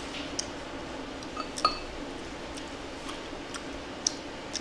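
Eating utensils clinking against dishes during a meal: light scattered taps, with one louder clink about one and a half seconds in that rings briefly.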